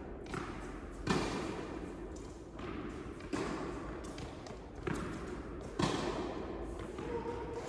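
A tennis rally: a tennis ball struck by rackets and bouncing on the court, about five sharp impacts a second or so apart, each echoing in an indoor hall.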